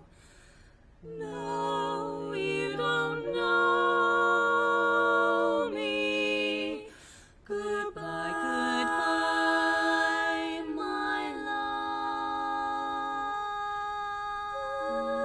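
Women's barbershop quartet singing a cappella in close four-part harmony, moving through sustained chords. It starts after a brief pause about a second in, breaks off for a moment around the middle, then holds a long ringing chord.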